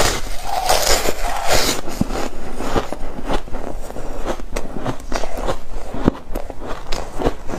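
Close-miked bite into a piece of molded foam ice, with a dense crunch for the first second or two. Then steady chewing with many small sharp crackles as the ice breaks up in the mouth.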